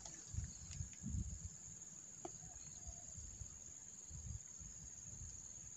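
Insects chirring in a steady, high-pitched drone, with faint low rumbles underneath.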